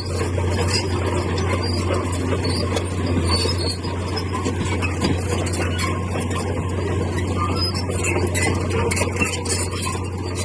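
Heavy earthmoving machine running steadily under load, a deep engine drone with scattered short high clicks of metal and stone over it.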